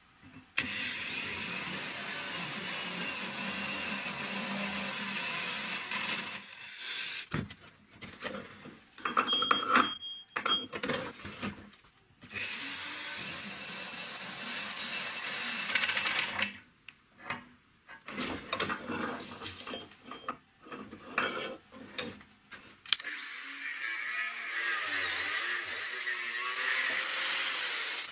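A power drill with a stepped bit cutting through the wall of a square steel tube, in three long steady runs. Between the runs come scattered metallic clicks and knocks.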